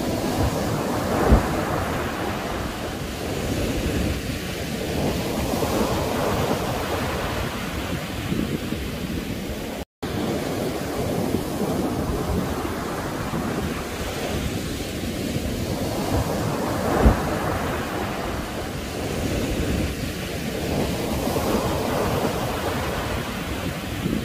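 Surf washing on a shore with wind on the microphone, a steady rush that swells and eases every few seconds. There is a short thump about a second in and another about two-thirds of the way through, and the sound drops out for a moment near the middle.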